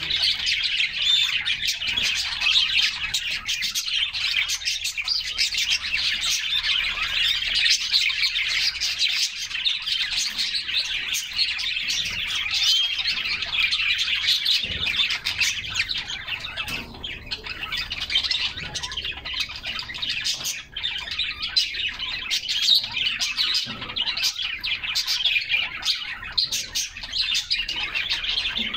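A group of canaries chirping and singing together, many short high notes overlapping without a break.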